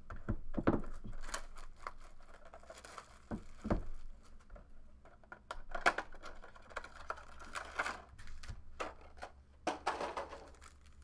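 Cellophane shrink wrap on a trading card box being slit with a box cutter and pulled off, plastic crinkling and tearing in irregular bursts, with a few knocks as the box and packs are handled on the table.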